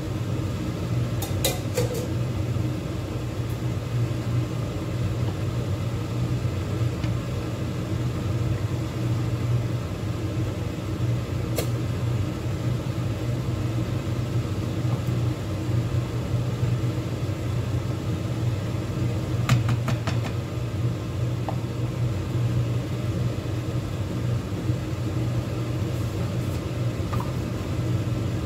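Steady low hum of kitchen equipment around a pot of crab simmering in coconut milk on a gas hob, with a few sharp knocks of a utensil against the pot: about a second and a half in, near the middle, and twice about two-thirds through.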